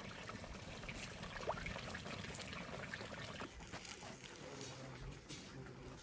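Water trickling, with small clicks over it. About halfway through the sound changes abruptly and the top end drops away.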